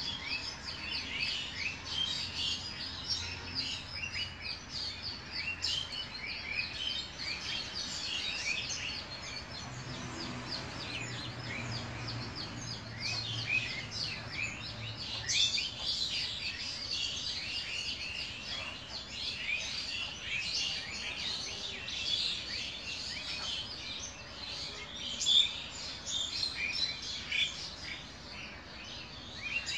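Many small birds chirping together in a busy, continuous chorus of short, quick chirps.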